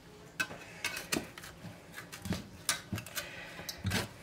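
A fork and a serving spatula tapping and scraping against a metal baking pan as a piece of meatloaf is worked loose and lifted out: a string of light, irregular clicks and clinks.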